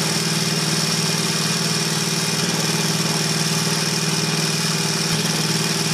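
Consew 206RB industrial walking foot sewing machine running at a steady speed, stitching through denim with heavy Tex 138 thread and a size 24 needle: a fast, even stitching rhythm over the motor's hum.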